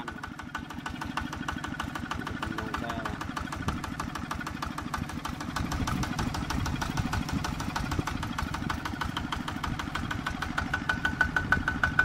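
Single-cylinder horizontal diesel engine (an RT155) on a small tractor, running steadily with a rapid, even firing beat; it gets louder and more strongly pulsed near the end.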